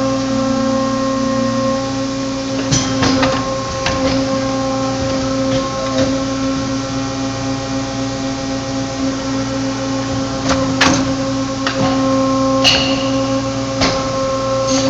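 CNC tube-bending machine working a power-steering tube: a steady motor hum with a few sharp clicks and clunks from the machine about 3, 4, 6, 11, 12.5 and 14 seconds in.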